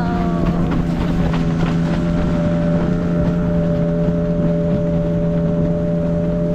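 Longboat outboard motor running at a steady pitch while under way, with wind buffeting the microphone.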